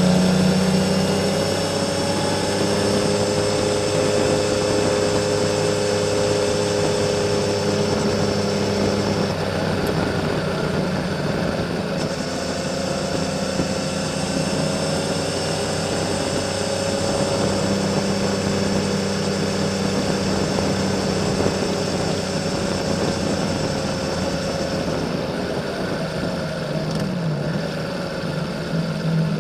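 Honda CBX 1000's air-cooled inline six-cylinder engine running through a Kerker 6-into-2 exhaust, the bike cruising steadily uphill at an easy pace. The engine note rises and falls gently with throttle and speed.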